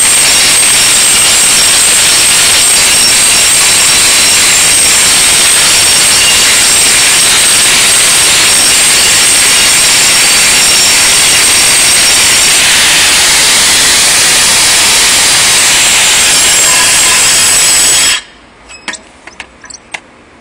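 DeWalt angle grinder with a segmented cup wheel grinding rust and paint off a steel fire escape post: a loud, steady grinding noise with a thin high whine. It cuts off suddenly about two seconds before the end, leaving a few light clicks.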